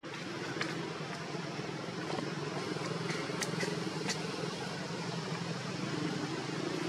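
Steady low background rumble, with a few sharp clicks around three to four seconds in.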